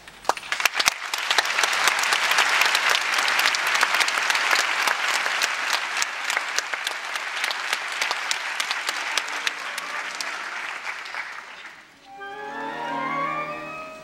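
Theatre audience applauding, breaking out just after the start and fading about twelve seconds in, when the orchestra starts playing again.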